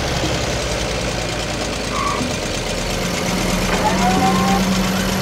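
Cartoon sound effect of vehicle engines running at idle, a steady engine hum that gets a little louder about three to four seconds in.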